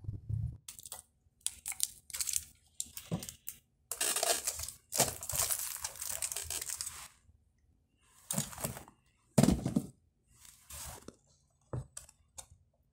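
Handling noise: irregular rustling and crinkling, with a longer run of it a few seconds in and a sharp crackle about three quarters of the way through.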